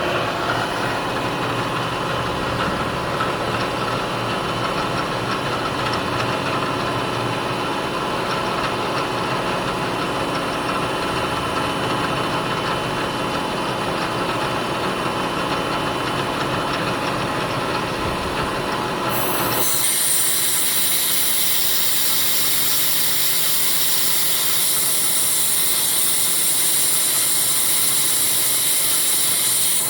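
Milling machine running steadily with a spindle hum during a light cleanup pass on a small ABS part. About two-thirds of the way in, the hum drops away and a steady high hiss takes over.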